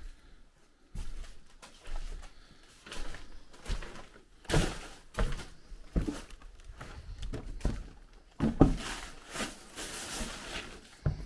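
Irregular thumps, knocks and scuffs of footsteps on an old, soft wooden floor in a small room, the loudest knocks about four and a half and eight and a half seconds in.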